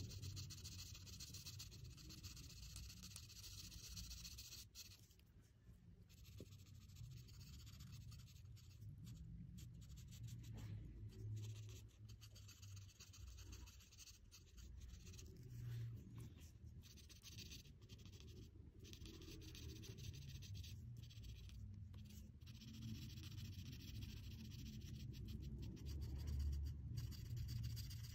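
Faint scratchy hiss of a felt-tip marker tip rubbing back and forth on paper as an area is coloured in, coming and going with the strokes.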